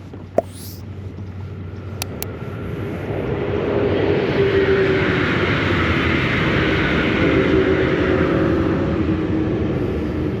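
A heavy vehicle rumbling past, growing louder over the first four seconds and then holding steady.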